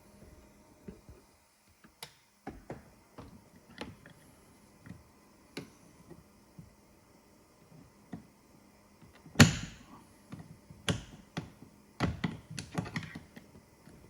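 Light plastic clicks and knocks from a car's interior door handle being worked free of the door panel, its small retaining clip popped off the bar and the handle pulled off. Scattered taps at first, then a sharper knock about nine seconds in and a run of clicks after it.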